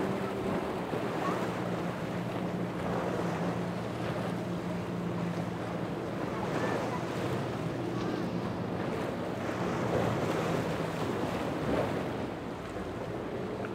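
Powerboat engines running with a steady hum that fades about eleven seconds in, over a constant wash of waves and wind buffeting the microphone.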